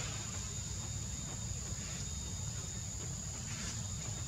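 Insects giving a steady high-pitched drone, over a low steady rumble.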